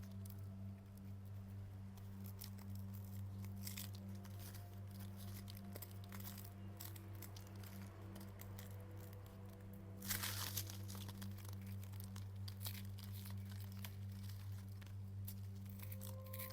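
Quiet handling of tea utensils: small clicks and rustles, with a brief louder rustle about ten seconds in, over a steady low hum and faint ringing tones that slowly die away.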